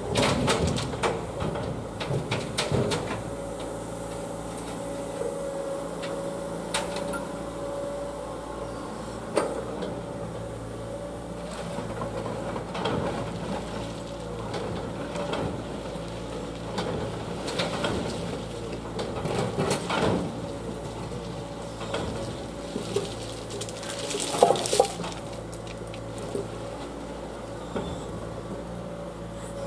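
Diesel engine of a Liebherr road-rail excavator running steadily, with repeated sharp metallic clanks and knocks over it and a louder cluster of clanks near the end.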